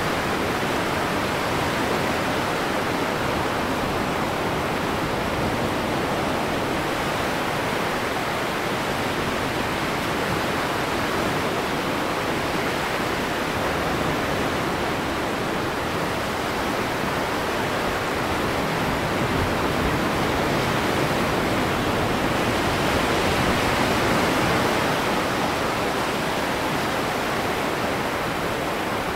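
Steady, loud rushing noise with no pitch or rhythm, holding level throughout.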